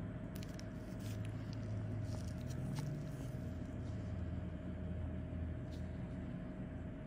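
Steady low background hum with a thin constant tone, and scattered small clicks and ticks.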